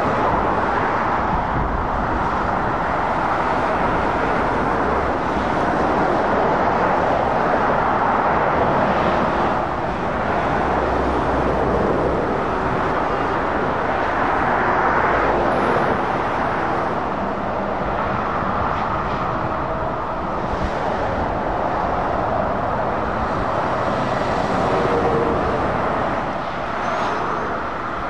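Steady road traffic: the tyre noise and engines of lorries, vans and cars passing at speed on a dual carriageway, swelling and easing a little as vehicles go by.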